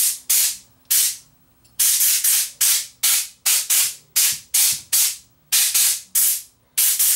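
Compressed-air blow gun from an air compressor firing short hissing blasts, about two a second, each starting sharply and trailing off, to blow dust out of a cassette deck mechanism.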